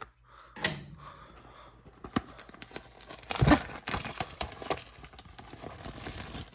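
Tearing and crinkling as a cardboard retail box of trading cards is ripped open by hand, with one sharp, loud rip about three and a half seconds in.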